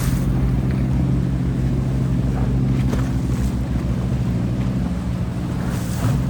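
Passenger river boat's engine running steadily under way, a low even hum, with wind and water rushing past.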